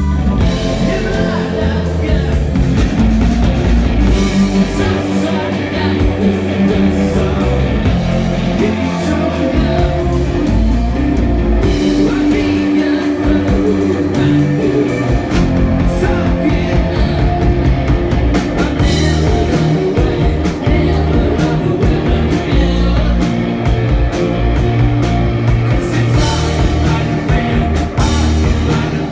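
Live rock band playing: electric guitars, electric bass and drum kit, with a lead vocal sung over them.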